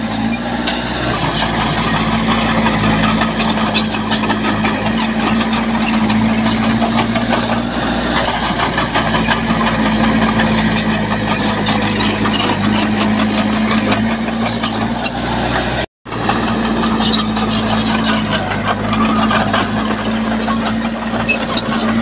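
Mitsubishi bulldozer's diesel engine running steadily under load while it works. About two-thirds of the way through, the sound drops out for an instant.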